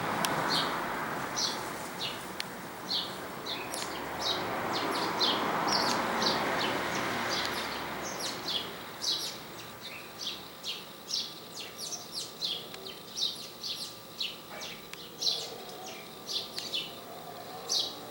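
Jet airliner passing overhead, its broad engine rush fading away over the first half. Small birds chirp repeatedly throughout, about twice a second, and are left on their own once the jet has faded.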